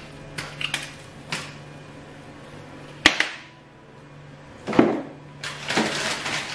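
Kitchen handling sounds from spice containers: a few light clicks and taps, sharp knocks about three seconds in and again near five seconds, then the crinkling of a foil spice packet near the end, over a low steady hum.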